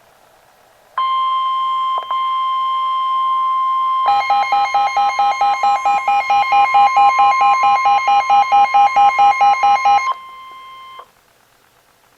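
NOAA Weather Radio's 1050 Hz warning alarm tone: a loud, steady, high electronic tone that lasts about ten seconds, sent just before a warning message is read. From about four seconds in until near its end, a rapid, even electronic beeping plays over it.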